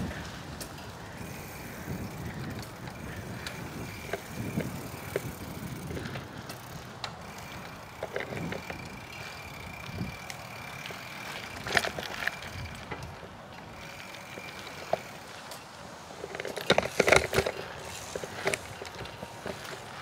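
Bicycle being ridden along a concrete sidewalk: steady tyre and riding noise with scattered rattles and knocks from the bike, and a louder burst of clunks and rattling a few seconds before the end.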